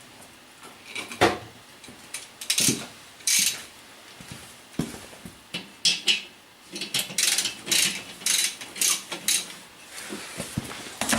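Irregular metallic clicks, clinks and short scrapes of small metal parts and tools being handled during disassembly of a scooter's piezo ignition unit.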